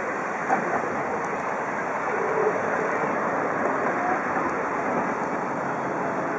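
Steady rushing wind noise on the microphone, an even rush with no clear engine note or distinct knocks.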